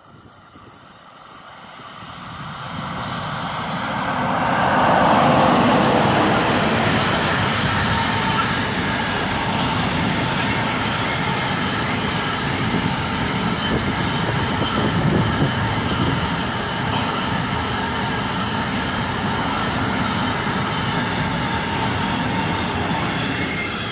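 A freight train headed by two class 151 electric locomotives approaching and passing close by. It grows louder over the first few seconds and is loudest as the locomotives pass about five seconds in, then gives way to a steady rumble and clatter of intermodal wagons, loaded with semitrailers and tank containers, rolling past.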